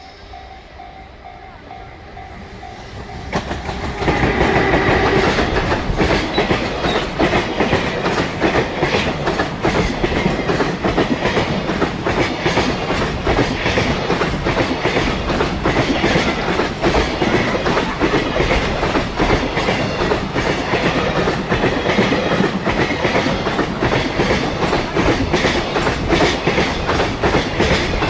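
Level crossing warning bell ringing in quick repeated tones. About four seconds in, a JR Freight EF210 electric locomotive hauling a long train of container wagons arrives and passes at speed. Its wheels make a loud, continuous clickety-clack over the rail joints.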